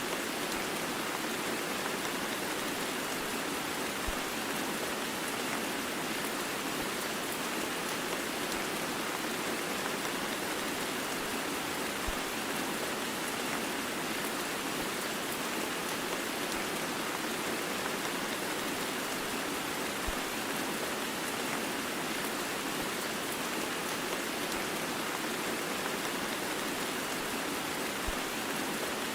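Heavy rain mixed with white noise: a steady, even hiss with no thunder. A faint low tick recurs about every eight seconds.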